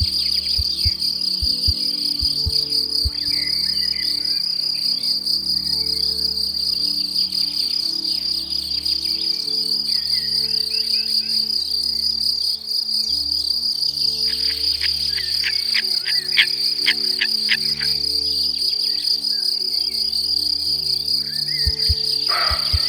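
A steady, high-pitched insect trill, cricket-like, runs unbroken over soft background music with long held low notes. About two-thirds of the way through comes a quick run of sharp clicks.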